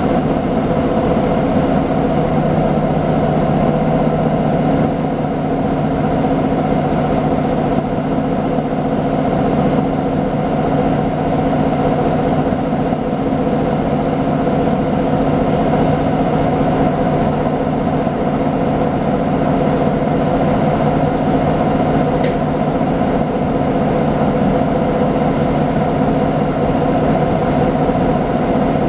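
Nova Bus LFS articulated city bus running, a steady engine and drivetrain drone holding several fixed tones, with one brief tick about 22 seconds in.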